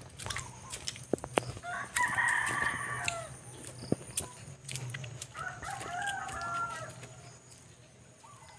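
A rooster crowing twice: the first call about two seconds in, lasting about a second, and the second a few seconds later, lasting a little longer. A few sharp clicks come in between.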